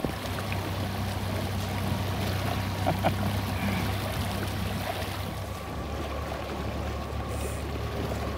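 Water splashing and trickling, most likely against the hull of the boat carrying the microphone, over a steady low motor hum.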